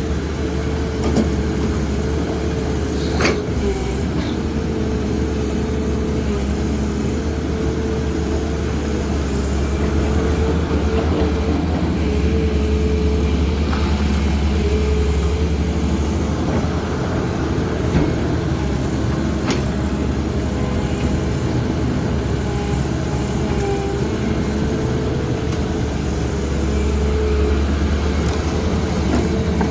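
Heavy excavator's diesel engine running steadily under load, with a few sharp knocks from the machine's work.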